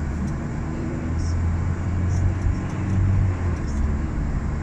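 Car interior noise while driving: a steady low engine and road-tyre rumble.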